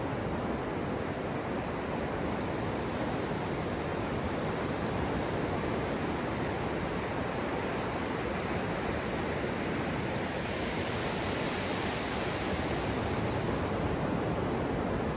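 Ocean surf breaking and washing up the sand close to the microphone, a steady rush of foam and water. The hiss grows brighter about ten seconds in as a wave washes in.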